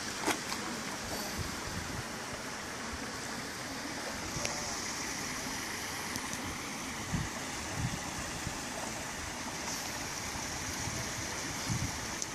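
Shallow stream running over rocks: a steady rush of water, with a few short low thumps on the microphone.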